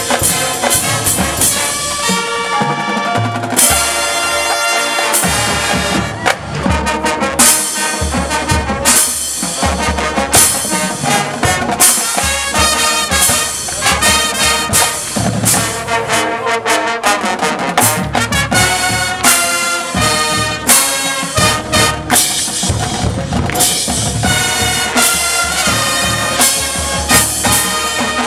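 Marching band playing a field show: full brass section with drumline and front-ensemble percussion, loud, with frequent sharp drum hits.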